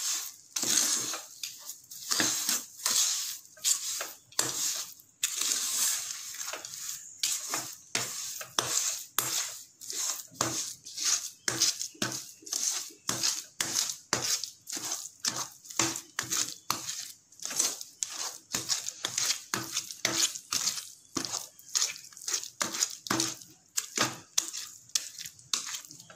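A spatula stirring and scraping around a nonstick pan in quick repeated strokes, about one and a half a second, as sugar is worked into cooked semolina for rava kesari to keep it from forming lumps.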